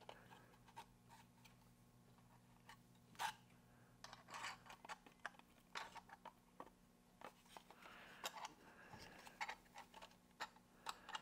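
Scattered light clicks and taps from small parts being handled and fitted together: the aluminium-rod diverter door linkage and its 3D-printed duct pieces. One click about three seconds in is louder than the rest, and a faint steady hum runs underneath.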